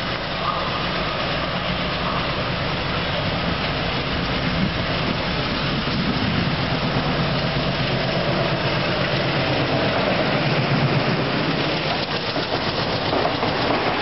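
Rebuilt ALCO WDM3A diesel-electric locomotive's 16-cylinder ALCO 251 engine working under load as it hauls an express past, a steady low drone growing slowly louder as the locomotive draws near.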